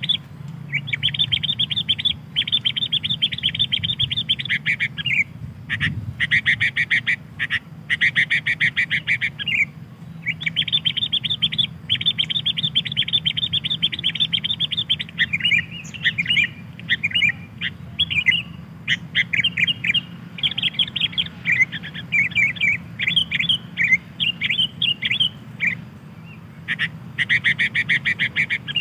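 Sooty-headed bulbul (kutilang) chattering: fast runs of high chirps lasting a few seconds each, broken by short pauses, becoming more varied and broken-up phrases in the second half. A steady low hum runs underneath.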